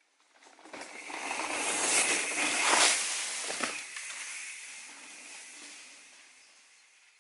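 A mountain bike's tyres rolling over dry leaf litter on a dirt trail make a hissing, crackling rush. It builds up, peaks with a few sharp crackles and knocks about two to four seconds in, then fades away as the bike passes.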